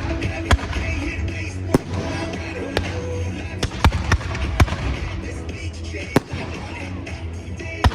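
Fireworks bursting overhead: several sharp bangs at irregular intervals, a cluster of them about four seconds in, over pop music with a heavy bass beat.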